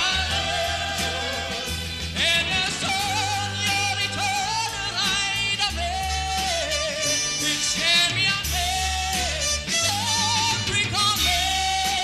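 Male lead singer performing a 1970 Italian pop song with an orchestra and a backing vocal group; long notes held with vibrato over a steady bass line.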